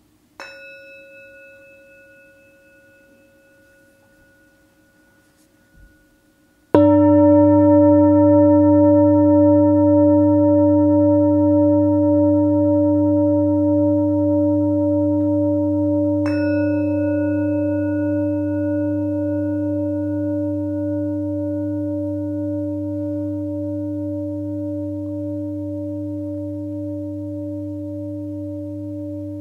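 Singing bowls struck and left to ring. A small bowl rings out about half a second in and fades. A large bowl is struck about seven seconds in, the loudest sound, with a deep tone that fades slowly with a wavering beat. The small bowl is struck again about sixteen seconds in over it.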